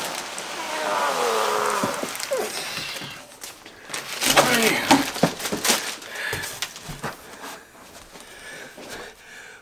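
Clear plastic bag crinkling and rustling, with cardboard rubbing, as a large boxed statue is pulled up out of its plastic bag and cardboard shipping carton and set upright. The crackly handling is loudest about four to six seconds in and quieter after.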